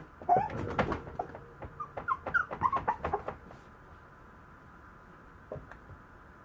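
Maltese puppy whimpering in a burst of short, high squeaks mixed with sharp clicks, over about the first three seconds.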